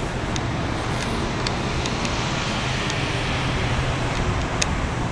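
Steady urban road-traffic noise with a low hum, broken by a few light, sharp clicks at uneven intervals.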